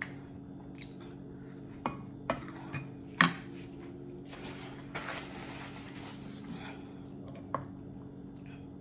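A metal spoon clinking and scraping against a plate in a handful of sharp knocks, the loudest about three seconds in, with a stretch of soft eating noise in the middle.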